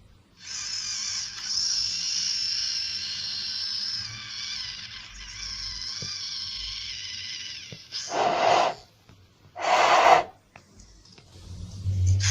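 High, multi-toned chirping presented as a salamander's call, held for about seven seconds. Then come two short, louder squeals about a second and a half apart.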